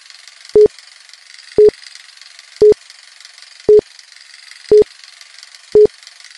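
A short electronic beep at one steady mid pitch, repeating about once a second, six times, over a faint hiss.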